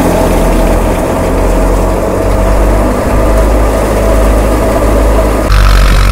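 Tractor-driven wheat thresher running steadily under load, with the tractor's diesel engine humming beneath the clatter and rush of the machine. About five and a half seconds in, the sound changes abruptly and the tractor engine comes to the front, louder and closer.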